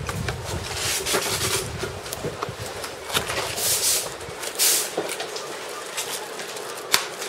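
Plastic packaging rustling and crinkling as a tablet is sleeved and a clear plastic bag is opened, in short bursts, with scattered clicks of handling and one sharp click near the end.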